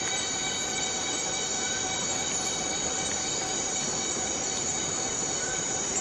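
Borneo rainforest cicadas singing: a steady, unbroken drone of several held tones over a hiss.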